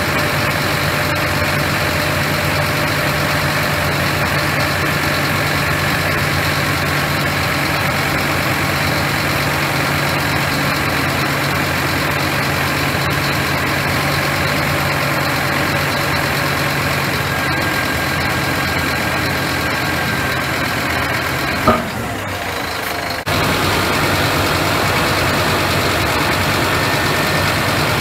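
Scania truck's diesel engine idling steadily. Near the end a sharp click is followed by about a second and a half of quieter sound before the steady running resumes.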